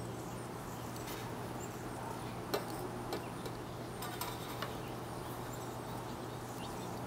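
A few faint, scattered metal clicks and taps of test probes and wire being handled during a continuity check on the vacuum's power cord, over a steady low hum.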